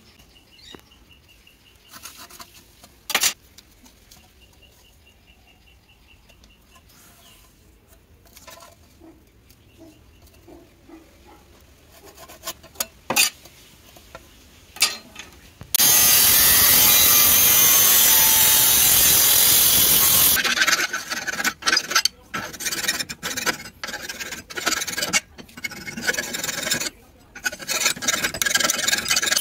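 Faint handling sounds, then about halfway a loud, steady power-tool noise for about four seconds, then a hand file rasping in repeated strokes along the edge of a small steel sheet-metal patch clamped in a bench vise.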